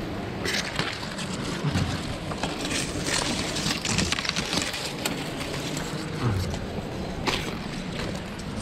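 Footsteps crunching through dry cane stalks and dead leaves, with dry stalks rustling and scraping against the body, in irregular crackles.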